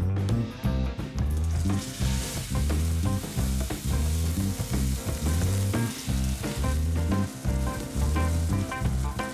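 Thick A5 Wagyu strip steak sizzling as it is laid into a cast iron skillet of rendered beef fat heated to over 600 degrees. The sizzle sets in about two seconds in and runs on steadily. Background music with a steady bass beat plays under it.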